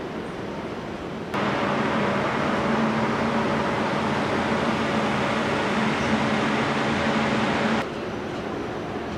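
Steady street background noise. About a second in, a louder steady mechanical hum with several held tones cuts in abruptly and cuts off just as abruptly near the end.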